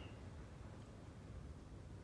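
Near silence: a faint low background rumble with one light click at the very start.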